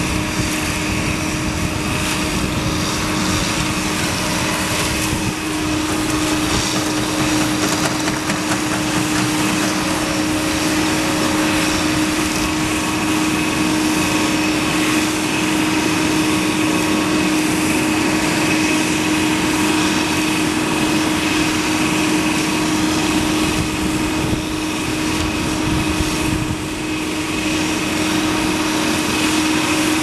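ARGO 4000 self-loading concrete mixer's diesel engine running steadily with a constant hum, driving its hydraulics as the loading bucket is raised.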